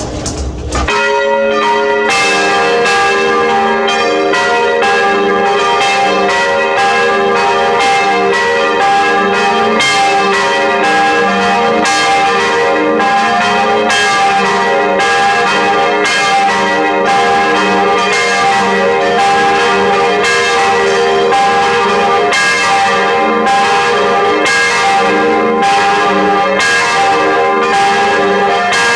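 Several church bells ringing together in a peal, their strokes overlapping in a steady, continuous clangour. The ringing starts about a second in, and more bells join a second later.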